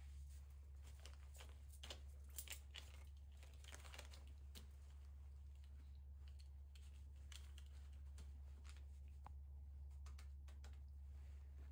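Near silence: room tone with a steady low hum and faint scattered rustles and clicks, most of them in the first few seconds.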